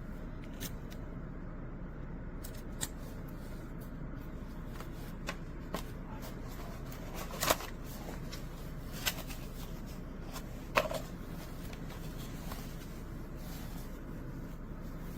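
Light handling noise: scattered soft clicks and rustles, three of them sharper, over a steady low background hum.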